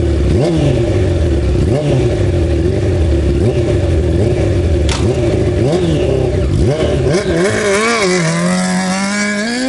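Suzuki GSX-R 600 inline-four motorcycle engine in a go-kart, revved in short sharp blips several times. In the last couple of seconds the revs climb in steps and hold higher as the kart pulls away.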